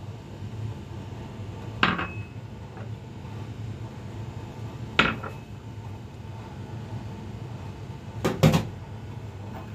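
Dishes and spoons being handled: three separate clinks and knocks, about two seconds in, around five seconds, and a double knock near the end, the first with a short ring, over a steady low hum.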